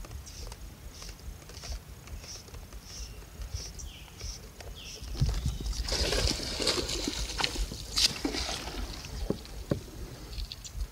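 Fly line and rod being handled in a kayak: faint rustling and light water sloshing, turning to a louder, busier rustling with several sharp clicks from about halfway through as the line is stripped and the rod lifted.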